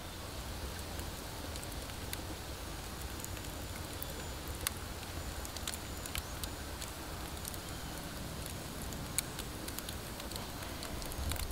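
Wood fire burning in a tatakua clay oven: a steady hiss with scattered sharp crackles and pops from the burning logs.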